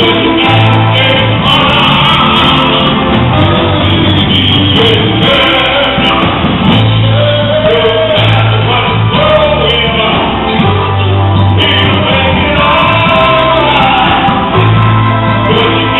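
Live gospel band and singers performing with high energy, with shouted vocals over a driving bass line.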